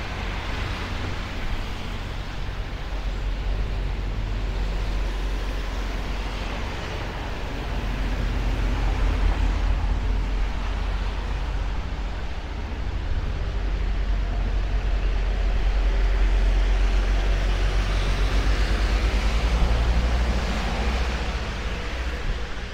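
Traffic on wet city streets: a steady low rumble with the hiss of tyres on wet asphalt, swelling louder about nine seconds in and again between about fifteen and twenty seconds.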